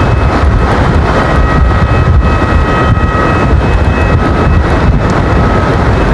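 Strong sea wind buffeting the microphone in a loud, steady rumble, with several steady whistling tones from a set of Vietnamese kite flutes (sáo diều) sounding together over it.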